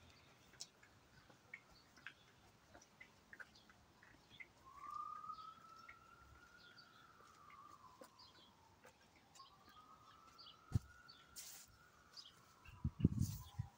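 Faint backyard ambience of small birds chirping. A slow wail rises and falls twice, about every five seconds, and a few dull thumps sound near the end.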